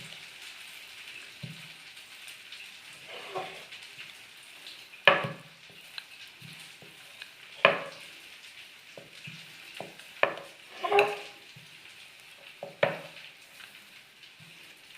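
Oiled parotta dough being spread and stretched by hand on a flat surface: sharp smacks about every two and a half seconds, with softer wet, oily sounds between them.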